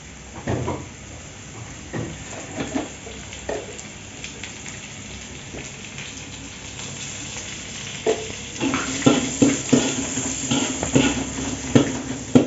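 Seasoning frying in oil in a wok, a steady sizzle, with scattered clinks and knocks of a spatula and utensils that grow busier in the last few seconds.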